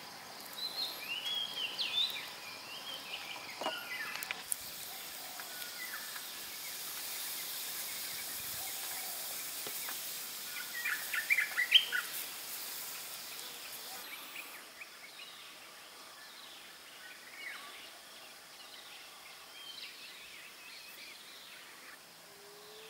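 Birds chirping and twittering in short runs, busiest about a second in and again around eleven to twelve seconds, over steady outdoor background noise. A high even hiss sits under the calls through the middle of the stretch and fades out around fourteen seconds.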